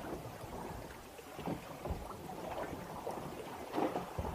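Water lapping against the hull of a boat sitting on open sea, with a few brief soft knocks, the loudest near the end.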